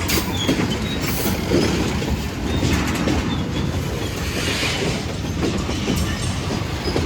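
Freight cars of a Union Pacific manifest train rolling past steadily, with a few brief, faint wheel squeals.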